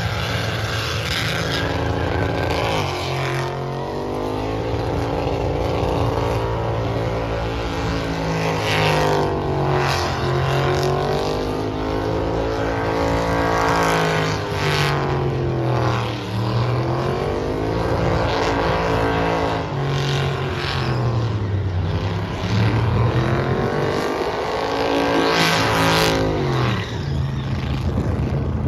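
Pickup truck engine revving high through a burnout, its pitch swinging up and down every few seconds, with the hiss of spinning tyres underneath.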